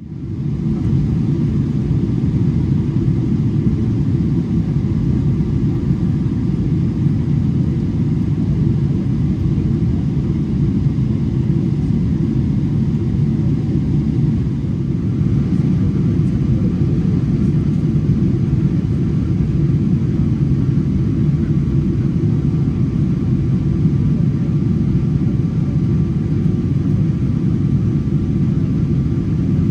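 Steady cabin noise inside a Boeing 777-300ER airliner in flight on descent: a dense low rumble of the GE90 engines and rushing air, with faint steady whining tones above it. It fades in at the start and holds level, dipping slightly about halfway.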